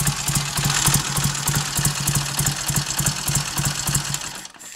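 Triumph 3TA 350 cc parallel-twin engine idling warm and evenly, its ignition timing back at the earlier setting with full advance a little beyond the manual's figure. It cuts out abruptly about four seconds in.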